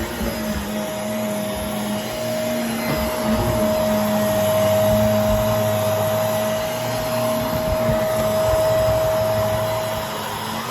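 Vacuum cleaner running steadily with a constant whine, vacuuming up baking soda.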